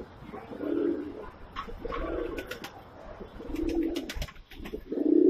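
Domestic pigeons cooing, a string of low coos about a second apart, with a few sharp clicks near the middle.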